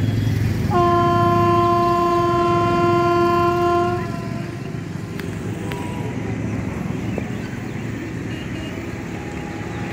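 Railway locomotive horn sounding one long, steady blast of about three seconds, over a low, continuous background rumble.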